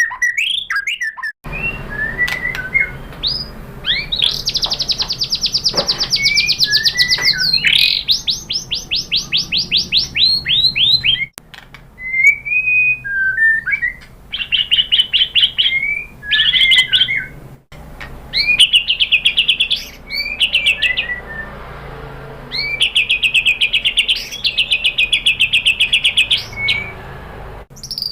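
White-rumped shama (murai batu) singing: clear whistled notes and slurs mixed with long runs of rapidly repeated notes, several lasting two to three seconds, over a low steady hum.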